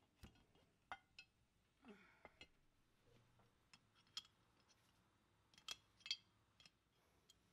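Faint scattered clicks and light taps of metal parts and wiring being handled as the bench grinder's motor and leads are fitted into its cast-metal base, with a short scrape about two seconds in.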